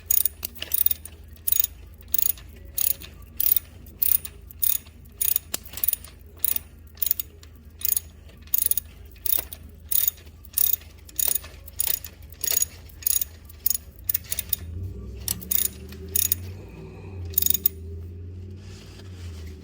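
Socket ratchet with a 5/8-inch socket turning the transmission drain plug on a Harley-Davidson Freewheeler: a long run of quick pawl clicks, a few a second, that stops near the end.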